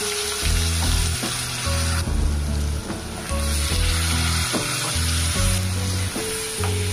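Freshly ground onion, garlic and green chilli paste sizzling in hot oil and spices in a metal kadhai, stirred with a steel ladle: the masala base starting to fry. Background music with a bass line plays along.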